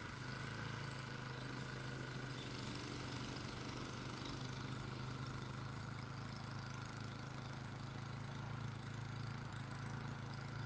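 Engine of a snow-clearing machine running steadily at an even speed.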